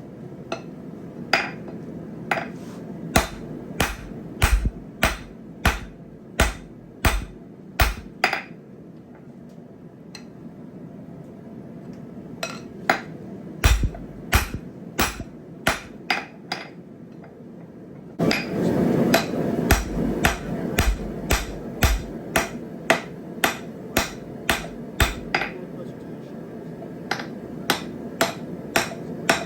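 Blacksmith's hammer striking hot steel on an anvil in runs of sharp, ringing blows about one and a half a second, forging the steel of an old jackhammer chisel into a hot cut hardy, with a pause of a few seconds partway. About two-thirds of the way through, a steady rushing noise comes up under the blows.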